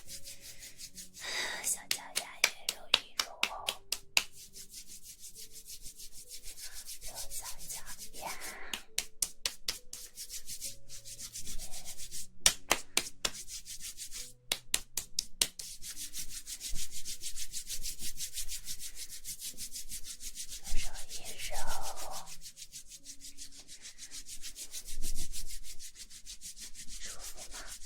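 Soft rubbing strokes on an ASMR microphone that imitate a gentle massage. They come in quick runs of several strokes a second, with pauses between the runs.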